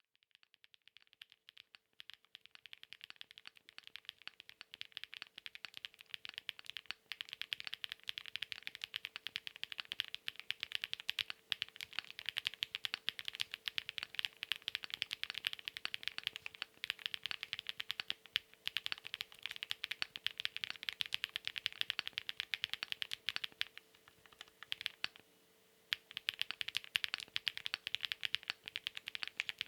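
Fast continuous typing on a Chilkey PAW65 gasket-mount mechanical keyboard with stock Huano Cherry Blossoms linear switches, FR4 plate and PBT keycaps: a dense stream of keystroke clacks. The typing starts slowly and pauses for about two seconds near the end.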